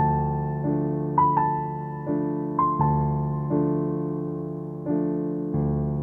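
Slow, gentle piano music: sustained chords that change about every second and a half, with a few higher melody notes over them.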